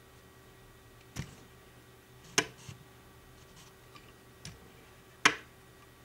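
Sharp clicks and taps from handling an MBS-10 stereo microscope during its alignment: three distinct clicks, the second and third the loudest, with a few fainter taps between, over a faint steady hum.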